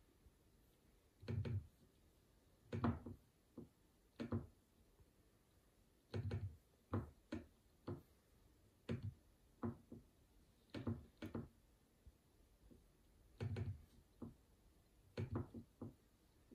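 A series of soft, dull knocks at irregular intervals, roughly one or two a second, some coming in quick pairs.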